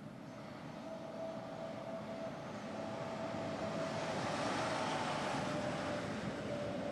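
Articulated lorries going by on a motorway: engine and tyre noise swelling as one comes close, loudest about four seconds in, with a faint steady whine.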